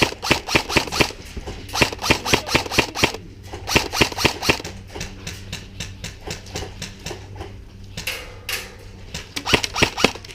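Airsoft guns firing in rapid runs of sharp snapping shots, several a second. There are three runs in the first five seconds, a few scattered shots after that, and another run near the end.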